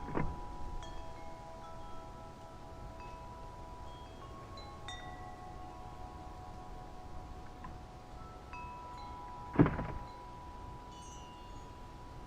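Wind chimes ringing lightly, a few notes struck now and then and left to ring on. A short thump comes right at the start, and a louder one about ten seconds in.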